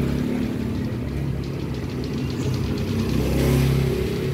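A motor vehicle engine idling close by: a steady low rumble that swells slightly about three and a half seconds in.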